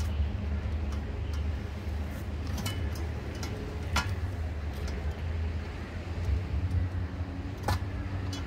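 A metal basket of vegetables is lowered and settled into a beer keg, with a few sharp metal clinks and knocks over a steady low rumble.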